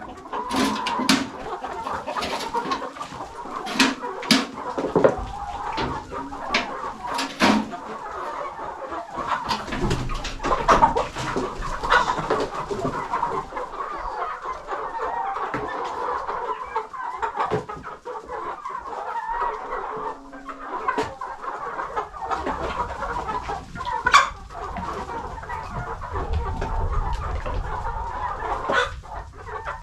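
A flock of chickens and chicks clucking and cheeping continuously, with scattered sharp clicks and knocks, most of them in the first half.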